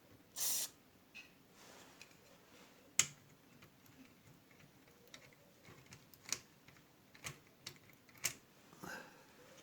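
A short spray of WD-40 from an aerosol can onto the small electric motor of a tin toy car, lubricating the motor because it is stuck after years of sitting. Scattered small clicks and taps of handling follow.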